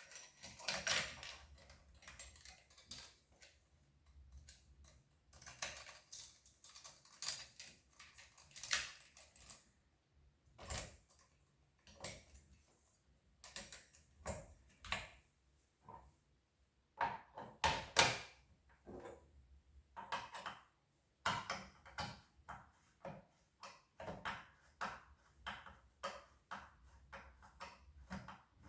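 Chainsaw being handled by hand with its engine not running: irregular clicks, knocks and rattles of hard plastic and metal parts, one every second or so.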